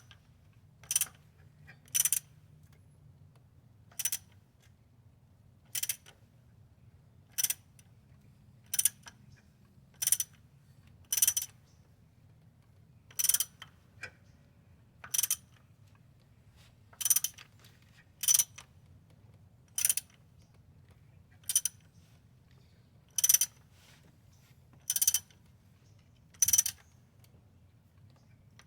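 Sharp metallic knocks from a 420A engine, one every one to two seconds and about eighteen in all, over a faint steady low hum. The owner cannot yet place the knock and suspects rod knock or piston slap.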